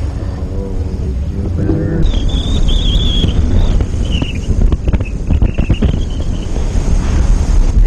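Wind buffeting the microphone of a camera on a jet boat running fast through river rapids, over the rush of water and the boat's engine. A wavering high-pitched tone comes in about two seconds in and lasts a few seconds, and several short sharp hits fall near the middle.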